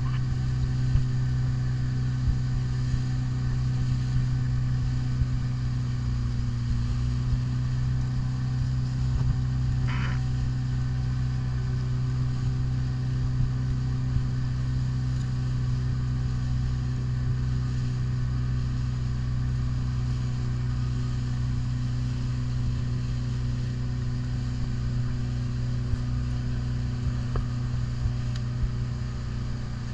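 Outboard motor of a Zodiac inflatable boat running steadily at cruising speed, a constant low hum, with a short faint higher sound about ten seconds in.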